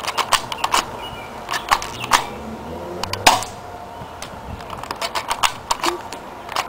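Spring-cocked airsoft pistol being handled and worked: an irregular string of sharp plastic clicks as its slide is cocked, the loudest single snap about three seconds in, and a quick run of clicks near the end.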